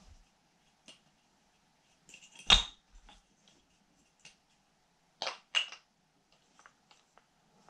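Wooden kendama being handled, its ball and cup giving off scattered knocks and clicks: one loud knock about two and a half seconds in, two more in quick succession a few seconds later, and light ticks between.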